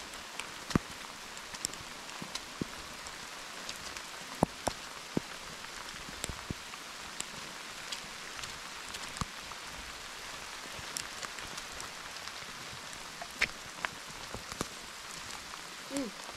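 Steady rain falling on rocky ground and scrub, with scattered sharp ticks all through.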